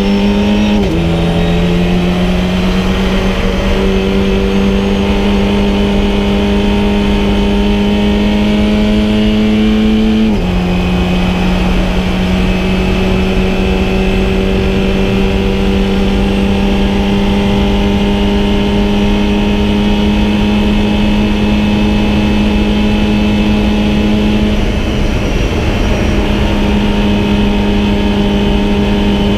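VW Fun Cup race car's engine heard from inside the cockpit, pulling hard with its pitch climbing slowly. The pitch drops sharply at an upshift about a second in and at another about ten seconds in. It then holds high and steady, wavering briefly about twenty-five seconds in before settling again.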